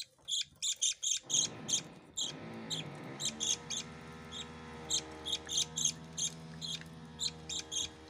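Budgerigars chirping in quick short peeps, a few a second, typical of a budgie chick begging while being fed. Background music comes in about a second in.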